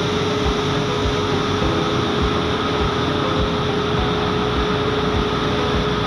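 Steady mechanical drone with a constant hum inside a ro-ro ferry's enclosed vehicle deck, from the deck's machinery and the engine of a loaded truck rolling slowly off.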